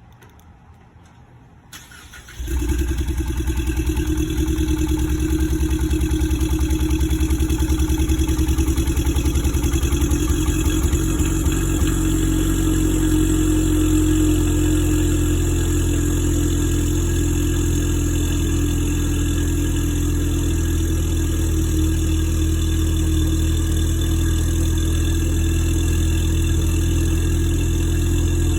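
Ford Mustang EcoBoost 2.3-litre turbocharged four-cylinder engine started about two seconds in, then idling steadily with a misfire on cylinder 4.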